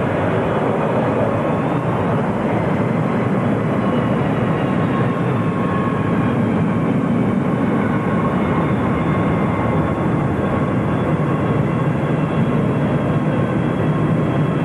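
Jet engines of a Lockheed L-1011 TriStar, three Rolls-Royce RB211 turbofans, on its landing roll along a wet runway: a steady rushing sound with faint high whining tones.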